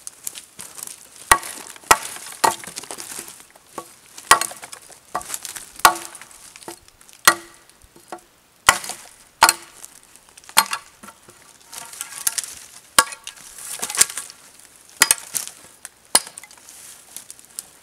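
Hatchet chopping at a branch: about a dozen sharp strikes at uneven intervals, with dry brush rustling and crackling between them.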